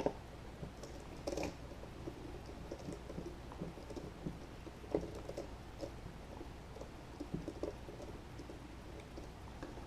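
Faint scattered clicks and taps of a screwdriver and hands working the grip screws out of an airsoft pistol, over a low steady hum.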